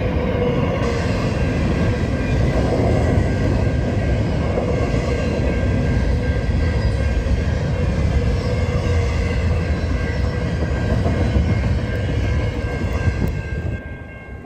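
A train rolling steadily past on the rails, with a few faint steady tones over the noise of the cars; the sound drops away near the end.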